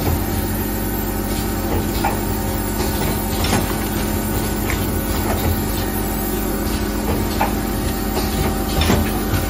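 Automatic premade paper-bag flour filling and packing machine running: a steady mechanical hum with irregular clicks and clacks as the bags move through its stations.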